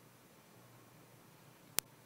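Near silence: faint room hiss, broken by one sharp click near the end.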